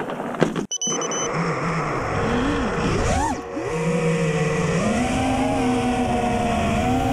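Armattan Rooster FPV quadcopter's motors and propellers whining in flight. The pitch swoops up and down with the throttle in the middle, then holds steadier and steps higher near the end.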